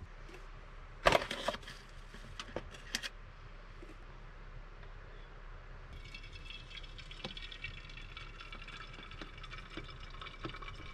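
AeroPress coffee maker knocked into place on a metal mug, with a few sharp clicks and knocks about a second in. From about six seconds the plunger is pressed down, forcing coffee through the filter with a steady liquid hiss.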